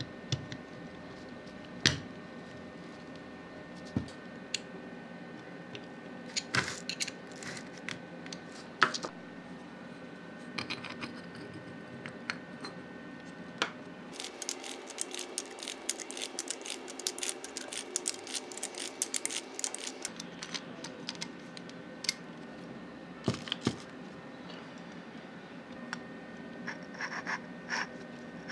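Metal parts of a lathe chuck clicking, clinking and scraping as they are handled and fitted together by hand. Scattered single clicks give way to a dense run of small ticks and scrapes in the middle, with more clinks near the end, over a steady faint background hum.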